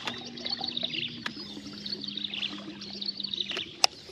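Birds chirping and trilling over a steady low hum that steps down slightly in pitch and fades out before the end, with one sharp click near the end.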